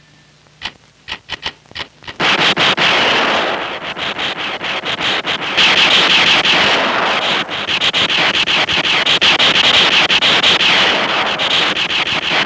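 Film sound effect of gunfire: a few single shots about a second in, then from about two seconds a loud, dense, irregular barrage of rapid shots over a noisy crackle.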